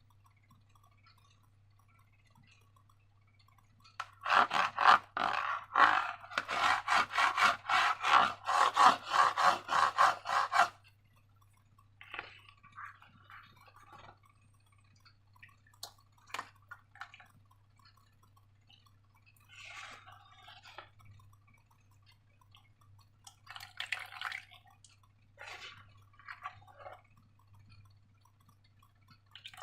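Slime being worked by hand. About four seconds in there is a run of quick, rhythmic squelching strokes lasting about six seconds, the loudest part. After it come scattered softer sticky squishes, over a steady low hum.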